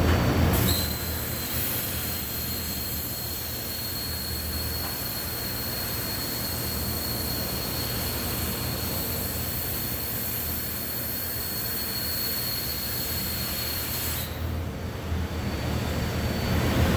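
Pulsed MIG welding arc burning one steady bead for about thirteen seconds, a hiss with a thin high whine, starting just under a second in and cutting off near the end. A low hum runs underneath throughout.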